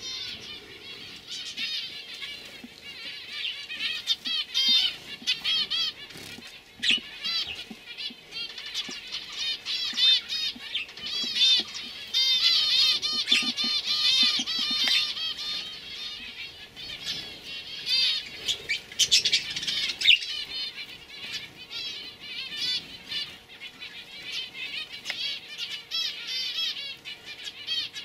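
Domestic canaries singing in fast, rapidly repeated trills and chirps, with a few short clicks among them.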